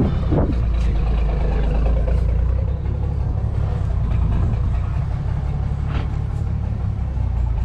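Vehicle engine idling steadily, a low, even running sound.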